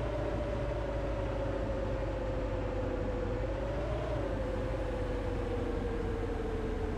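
A moving bus: steady running and road noise with a low rumble, and a whine that wavers and then slowly falls in pitch as the bus eases off.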